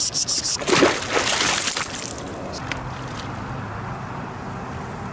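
A dog splashing in a shallow creek as she lunges for a crayfish: a few quick splashes at the start, then the biggest splash about a second in, lasting about a second.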